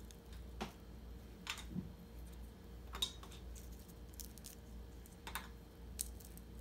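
Dried anchovies being cleaned by hand: scattered light dry clicks and crackles as the heads and guts are snapped off, the sharpest about three seconds in.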